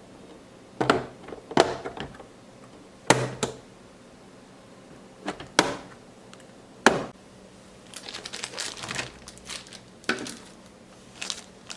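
A toy set's packaging being opened with its included tool: a series of sharp plastic clicks and snaps, spaced a second or two apart, with a stretch of crinkly rustling about eight seconds in.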